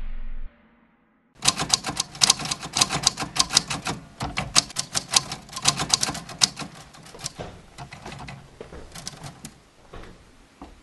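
Typewriter keys being typed: rapid, uneven runs of sharp key strikes beginning about a second in, thinning to scattered strikes after about seven seconds.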